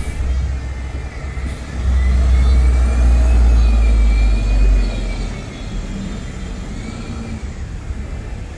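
Single-deck New World First Bus's engine pulling away, swelling loud for a few seconds from about two seconds in, then easing off, with a whine that rises and falls in pitch above the rumble.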